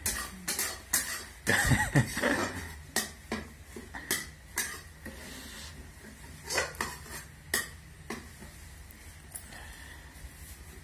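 Metal kitchen utensils and dishes clinking and knocking against each other: a string of separate sharp clinks, some ringing briefly, thinning out after about eight seconds.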